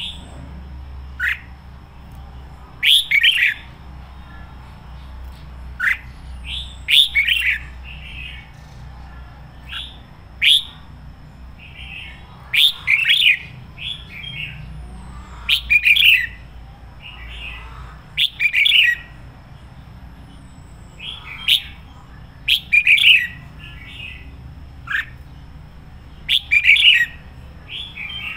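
Caged red-whiskered bulbul singing its keyed-up full song: short, bright phrases of quick notes, each with a sharp start, repeated every two to three seconds.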